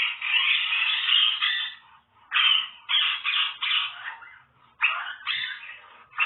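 An animal calling harshly: one long call, then a run of shorter calls about half a second each.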